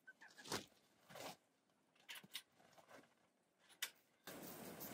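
Faint, scattered scratching and rustling of chickens scratching in straw bedding, with a short high chirp at the very start. A steady hiss comes in near the end.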